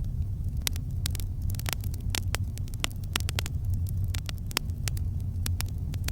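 Campfire burning, with irregular sharp crackles and pops, several a second, over a steady low rumble.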